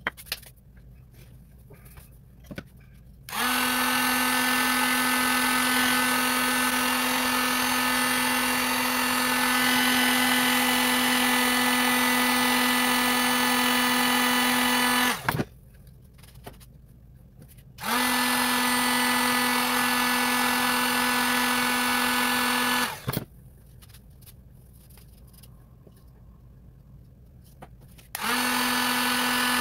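Electric heat gun running: a steady motor hum with a rush of air. It starts about three seconds in and runs in three stretches, cutting off for a few seconds twice. It is heating an oil-soaked wooden rifle stock so that the cosmoline sweats out of the wood.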